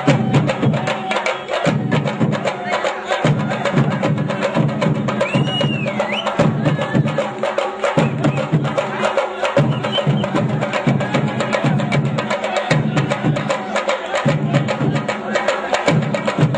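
Traditional percussion ensemble playing a fast rhythm: a dense run of sharp wooden-sounding clicks over drums that pulse in phrases about a second and a half long.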